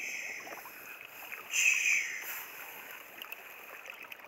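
Small waves lapping and splashing against a sit-on-top kayak's hull, with two louder splashy surges: one at the start and one about a second and a half in.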